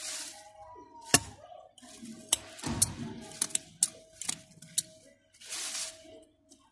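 Leafy rustling close to the microphone as the phone is pushed in among mint plants, with a string of sharp single clicks in between. A faint steady hum runs underneath.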